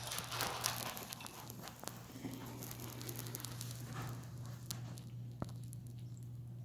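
Faint scattered clicks and rustles over a steady low hum.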